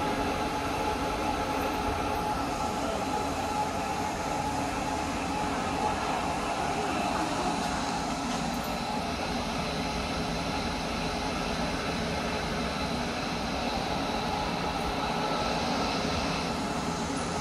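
Small low-profile electric belt conveyor running: a steady hum of the drive motor and the belt over its rollers, with a faint constant whine.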